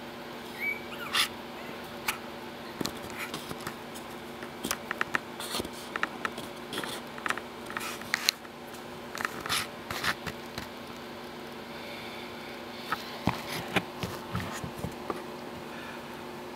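Miniature pinscher puppies scrambling about a plastic tub lined with fleece bedding: scattered light clicks and scratches of small claws and rustling of the bedding, in irregular clusters.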